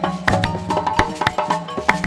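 West African percussion ensemble playing a fast rhythm: djembe hand drums and dunun bass drums, with a balafon's wooden bars sounding pitched notes over the top.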